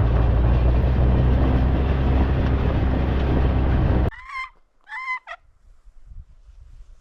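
An ATV engine running loudly and steadily, cutting off suddenly about four seconds in. Then two short bird calls with a wavering pitch, a turkey-like call.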